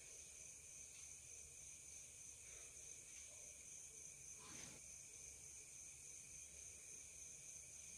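Faint, steady, high-pitched trilling of night insects such as crickets, with one brief faint sound about halfway through.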